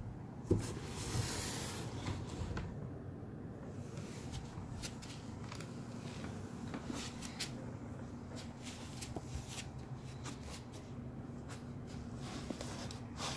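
Clear plastic wrapping rustling and crinkling, with scattered light clicks and taps, as a new aluminum cylinder head is handled on it, over a faint steady hum.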